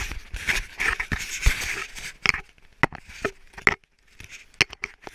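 Handling noise right at the camera's microphone: irregular clicks, scrapes and rustles of hands and clothing against the camera body as it is handled.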